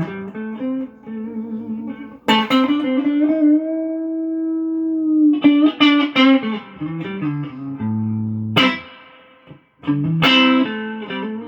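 Electric guitar played through a tube amp that has just had its power tubes replaced, for a sound check. It plays single-note phrases with one long held note, then strummed chords struck three times.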